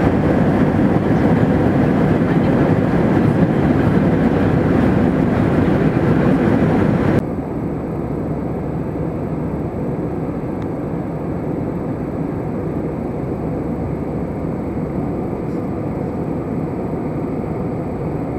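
Steady cabin noise of a jet airliner in flight, heard from inside the cabin: an even rushing hum with no distinct events. About seven seconds in it cuts abruptly to a quieter, duller version of the same steady noise.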